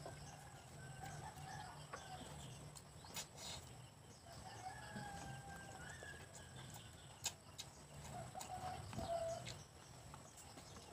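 Faint chickens clucking now and then, with a few soft clicks.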